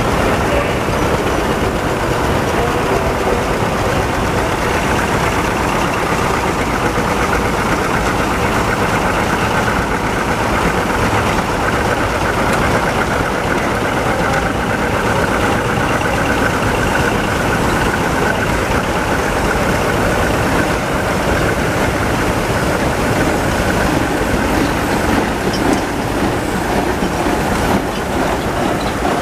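Case steam traction engine running, a steady mechanical noise without pauses.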